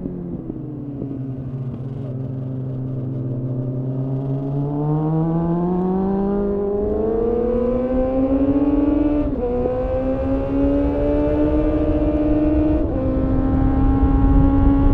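2001 Suzuki GSF 600 Bandit's inline-four engine through a GPR Furore Nero aftermarket exhaust, heard onboard. The revs fall away as the throttle closes and hold low for a few seconds. Then they climb under acceleration, with one upshift a little past halfway and another near the end.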